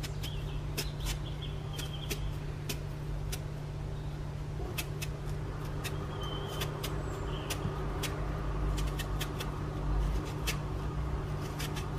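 Kitchen knife peeling the skin off a melon: a string of irregular, crisp clicks as the blade cuts through the rind, over a steady low hum.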